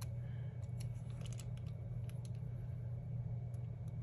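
Light, scattered clicks and rustles of a paper sticker being peeled and pressed onto a planner page with a pointed craft tool, over a steady low hum.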